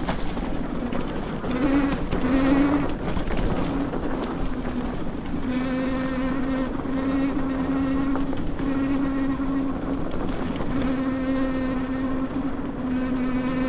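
Bafang G62 1000 W hub motor, driven by a Flipsky 75100 VESC controller, whining under power while riding, over a steady rumble of tyre and wind noise. The whine comes and goes at first, then holds a fairly steady pitch from about five seconds in, shifting slightly with throttle.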